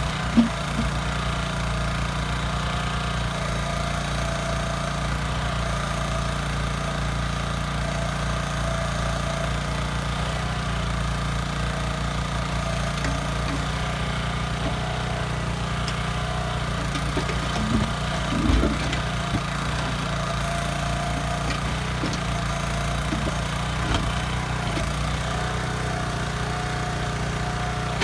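Small engine of a Kellfri ATV backhoe running steadily at an even speed, with a few short knocks, the loudest about two-thirds of the way through.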